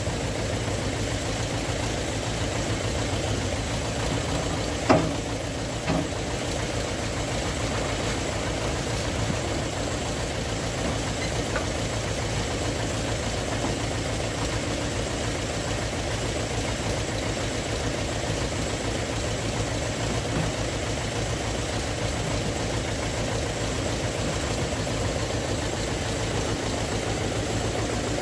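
Front-loader tractor engine idling steadily, with a sharp knock about five seconds in and a lighter one about a second later.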